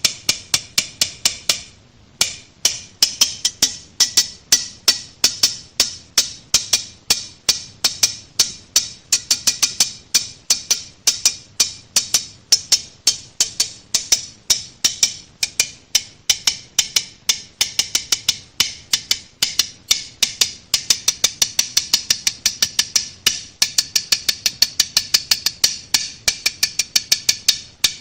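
Tongs clicking shut over and over in a fast, even rhythm, about four sharp clicks a second, each with a short ringing tail, with a brief pause about two seconds in.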